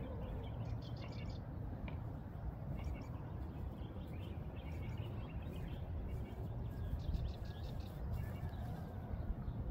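Birds chirping a few quick high notes, once about a second in and again about seven seconds in, over a steady low outdoor rumble.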